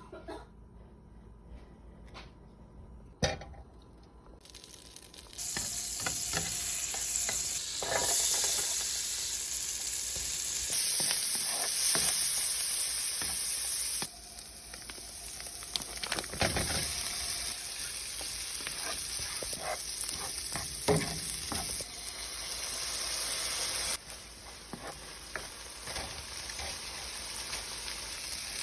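Fried rice sizzling in a hot pan while being stirred, with short scrapes and knocks of a utensil against the pan. The first few seconds are quieter, with a single knock about three seconds in; the sizzling comes in loud after about five seconds, and its level jumps abruptly several times.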